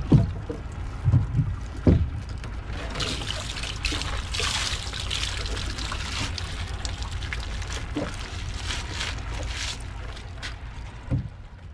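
Water splashing and trickling beside a small wooden fishing boat, over a steady low rumble. There are a few dull knocks in the first two seconds and another near the end.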